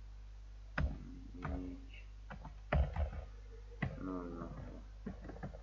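A few separate keystrokes on a computer keyboard, with a couple of brief murmured vocal sounds and a steady low electrical hum underneath.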